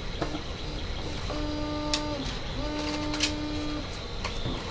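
Clicks and light knocks of small parts and packaging being handled while a box is searched. Two steady tones of about a second each sound in the middle, each dipping slightly at its end.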